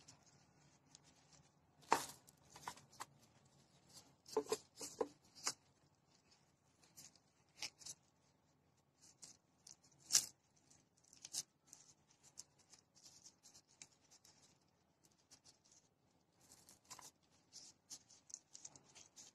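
A hand in a plastic food glove pressing and spreading glutinous rice over a nori sheet on a bamboo rolling mat: soft, irregular crinkles and pats, with a handful of sharper clicks standing out.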